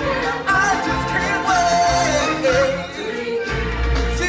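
Music with a singing voice, the melody gliding up and down, with a heavier bass line coming in near the end.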